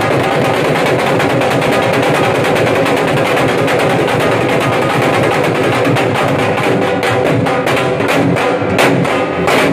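Three dhols, double-headed barrel drums, beaten with sticks together in a fast, dense rhythm. Over the last few seconds the playing breaks into separate heavy strokes, ending on loud closing hits.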